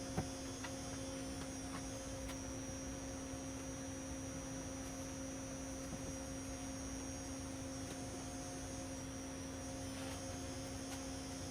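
Steady electrical hum, a few fixed tones over a faint hiss, with a small click just after the start and a few faint ticks.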